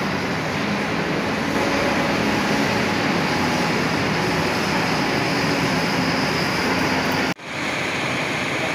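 Diesel coach engine running as the bus drives past, over steady vehicle noise. The sound cuts out abruptly for an instant about seven seconds in, then resumes.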